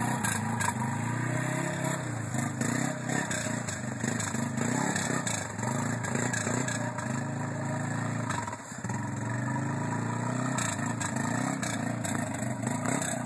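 Arctic Cat Mudpro ATV engine revving up and down under heavy load as it pushes through a deep mud hole, with some clattering.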